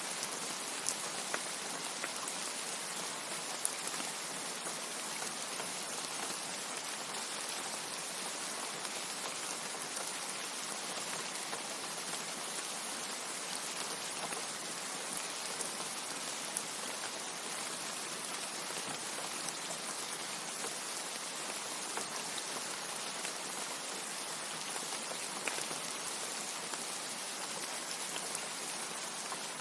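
Steady heavy rain, an even hiss with a few sharper drop ticks scattered through it.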